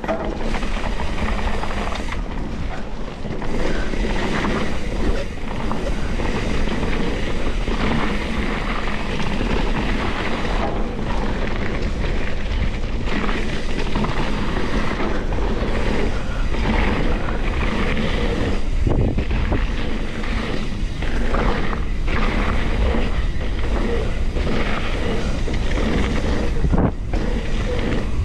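Wind buffeting the microphone: a steady rushing noise with a deep rumble underneath.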